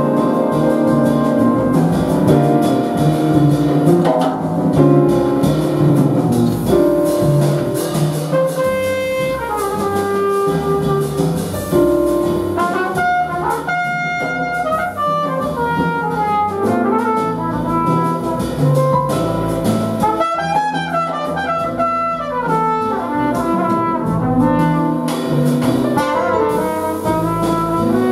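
Large jazz ensemble playing live, brass to the fore over piano, bass and drums. From about nine seconds in, a trumpet plays quick runs that rise and fall over the band.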